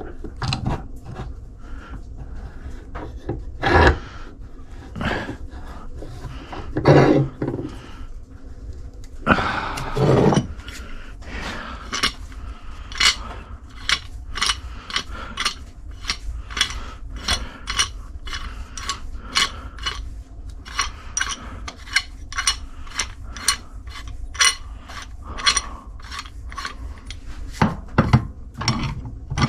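Hand tool worked on a metal part in short back-and-forth strokes. A few irregular scrapes and knocks give way, about ten seconds in, to a steady rhythm of about two strokes a second.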